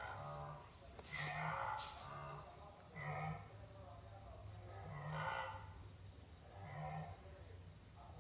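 Nyasa wildebeest calling: a series of short, nasal, moo-like grunts, one about every two seconds.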